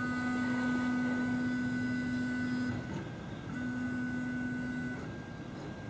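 Stepper motors of a scratch-built delta 3D printer whining steadily as the carriages drive to home, quiet with the motor current turned down. The whine stops about three seconds in, then runs again for about a second and a half.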